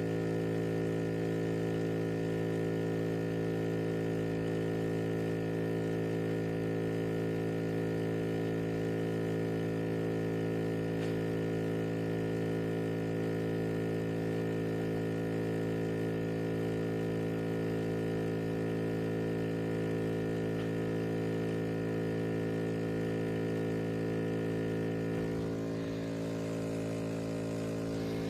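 Steady electrical buzzing hum that goes on unbroken, shifting slightly about 25 seconds in.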